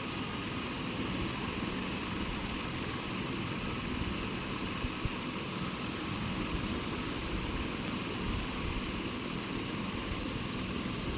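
Steady background noise: a constant hiss with a faint low hum and no distinct events.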